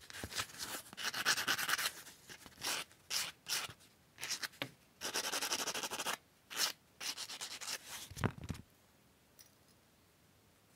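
Sandpaper rubbed back and forth in short strokes over the end of a small metal chain link to smooth it. The scraping strokes stop about two-thirds of the way through.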